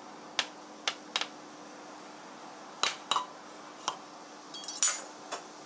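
Knife blade clicking against a small ceramic bowl as a green chili pepper is cut over it: about eight short sharp clinks at uneven gaps, with a quick little rattle and the loudest clink near the end. A faint steady hum lies underneath.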